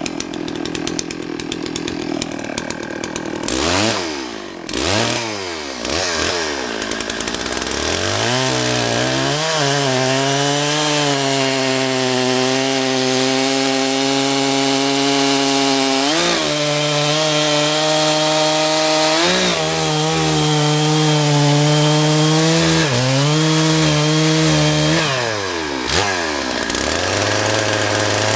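Chainsaw revved up a few times, then held at full throttle cutting through a big oak log. Its pitch drops and recovers several times as the chain bogs in the wood.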